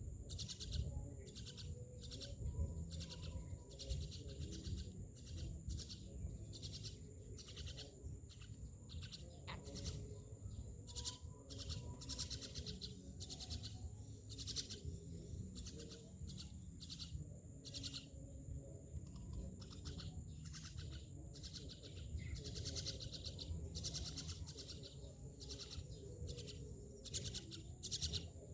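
Myna birds calling with a string of short, sharp chirps and calls, scattered irregularly throughout.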